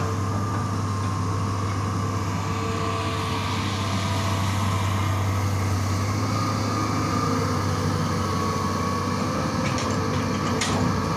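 Hitachi long-reach excavator running steadily, its diesel engine and hydraulics working as the machine swings and lifts its long boom and arm. A couple of short sharp clicks come near the end.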